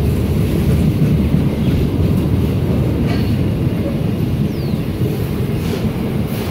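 Loaded container wagons of a freight train rolling past close by: a steady low rumble of steel wheels on rail, with a couple of faint clicks as wheels cross rail joints.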